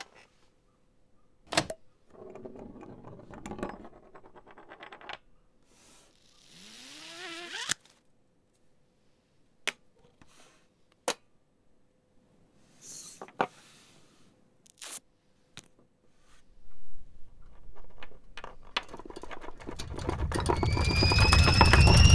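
Sharp single clicks and clunks from the controls of a portable radio-cassette recorder, spaced out over several seconds, with a short hissing burst whose pitch slides upward. Over the last several seconds a jumble of noise swells steadily louder, topped by two rising whistles.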